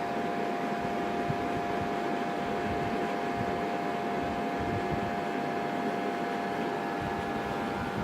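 Steady machine hum and hiss with a constant mid-pitched tone, like a running fan, with a faint tick about a second in.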